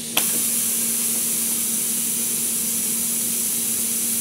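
A dual-coil solenoid valve clicks as its closed-side coil is energized. Compressed air then hisses steadily through the high-pressure pneumatic actuator and its speed controls as the butterfly valve slowly strokes closed.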